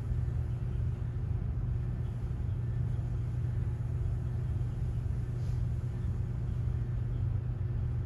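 Steady low rumble of room background noise with no voices, unchanged throughout.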